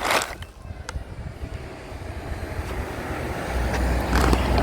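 Light knocks of small scrap metal pieces being handled, a sharp one right at the start and a lighter one about a second in. A low rumble builds over the last second or so and is the loudest part.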